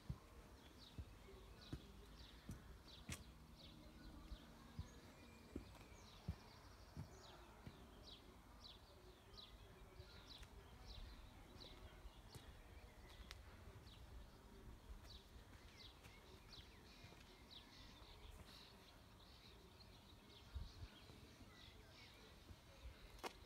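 Near silence: faint background noise with a run of short, high, falling chirps, about one or two a second through the middle stretch, and a few soft clicks.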